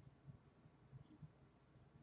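Near silence: room tone with a few faint low bumps.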